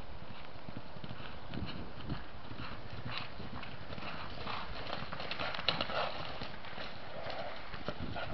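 Hoofbeats of a horse cantering across a grass paddock: a run of irregular dull thuds on the turf.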